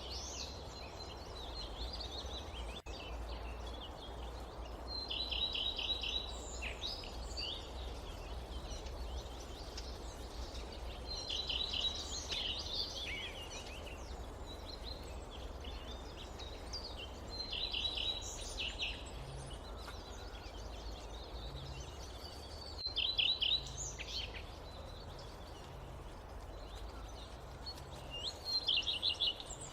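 A songbird singing the same short phrase of rapid, evenly spaced high notes about every six seconds, over a steady forest ambience hiss and a low rumble.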